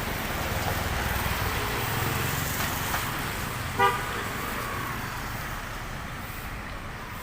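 Road traffic going by, with one short vehicle horn toot a little under four seconds in, the loudest sound.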